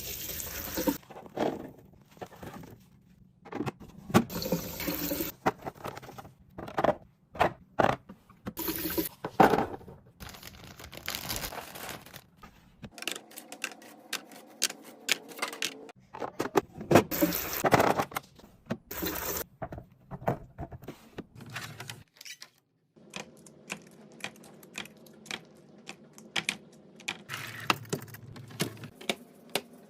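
Food containers, bottles and packaging handled and set down while restocking a refrigerator: irregular rustles, clacks and clinks. A steady low hum sits under them in the last few seconds.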